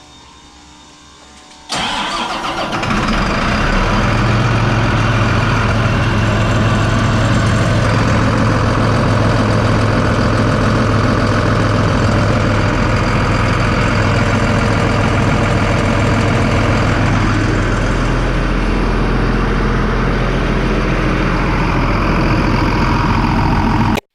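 Case IH Steiger STX 275 tractor's diesel engine starting up suddenly a couple of seconds in, then settling into a steady idle, run after a fresh oil change to check the new filter for leaks.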